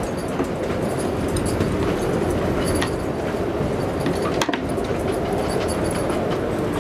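Storm wind blowing a hoolie over a moored sailboat: a loud, steady, dense rush, with a few sharp clicks and knocks, the strongest about four and a half seconds in.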